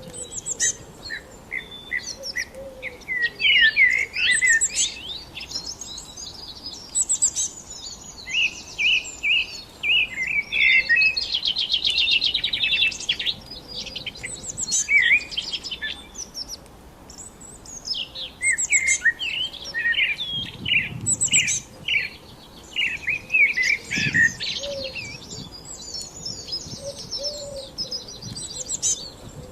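Songbirds chirping and singing: quick high chirps and warbled phrases that overlap, with a rapid trill near the middle.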